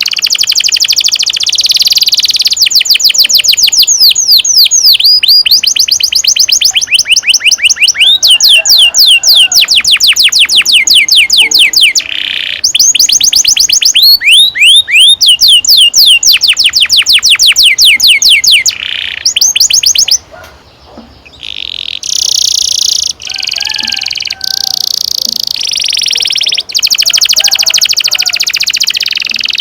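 Domestic canary singing long rolling trills of rapid repeated notes, some phrases sweeping down in pitch, with a short break about twenty seconds in.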